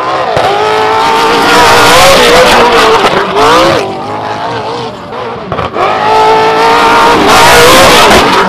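Speed Energy trophy truck's engine running hard at high revs, the pitch held steady, falling and climbing back quickly about three and a half seconds in, easing off briefly around five seconds, then held high again near the end as the truck jumps.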